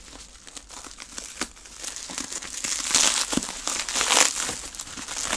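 Plastic packaging crinkling and rustling as it is handled and unwrapped, with many small sharp crackles. It is faint at first and grows louder from about two seconds in.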